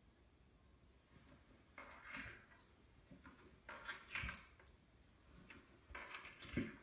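Faint soft bumps and brushing as a kitten lying on its side slides down bare wooden stairs, dropping onto the next tread three times about two seconds apart.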